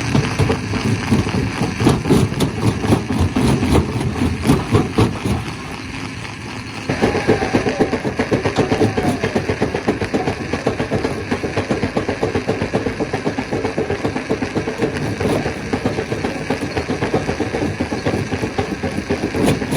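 Stone crusher machine running: a dense, continuous mechanical rumble with a fast rattling pulse. It dips briefly about six seconds in, then comes back abruptly.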